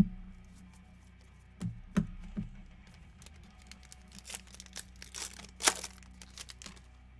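A sharp knock at the start and a few lighter knocks around two seconds in, then the crinkling and tearing of a plastic trading-card pack wrapper from about four seconds in, loudest near the end.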